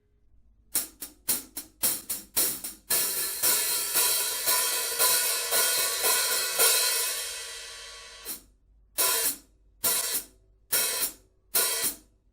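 Kingdo cymbal being played. It opens with a quick run of short choked hits, then hits about every half second build a sustained shimmering wash that fades out, and it ends with a few more short choked hits.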